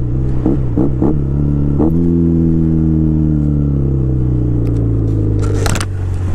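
Honda Rebel 250's engine running under way. Its note dips and picks up again four times in the first two seconds, then falls slowly as the bike slows, with a brief hiss near the end.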